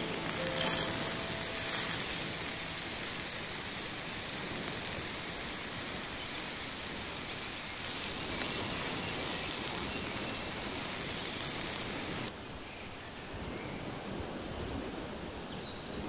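Pieces of lamb testicle sizzling in oil on a hot flat stone slab over a wood fire: a steady frying hiss, flaring louder about a second in as a fresh piece is laid on the stone. About twelve seconds in it cuts to a quieter background.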